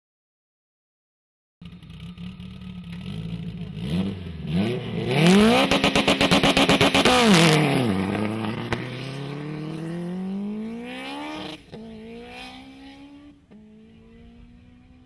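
High-performance car engine at full throttle, accelerating hard. It is loudest as the car passes close, about five to seven seconds in, then its pitch climbs steadily and drops sharply at two upshifts as it pulls away and fades.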